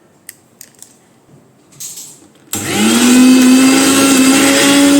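A few light clicks, then about halfway through a mixer grinder's motor switches on, spins up quickly and runs at a steady high-speed whine. The mixer now runs after its faulty power cable was replaced.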